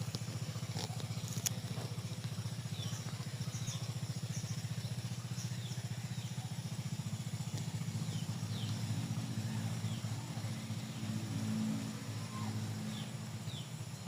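A small engine running steadily with a low, evenly pulsing drone, and short high chirps, like birds, scattered over it.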